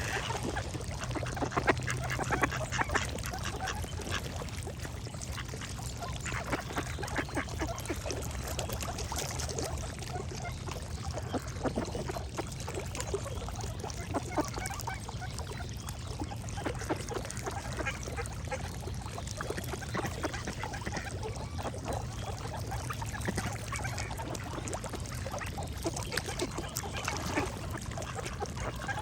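Ducks quacking in short, irregular calls, over a steady low hum and hiss.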